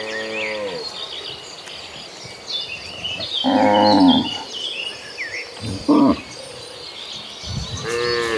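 Cattle mooing: one call fading out at the start, a louder call about three and a half seconds in, a short one around six seconds, and another starting near the end.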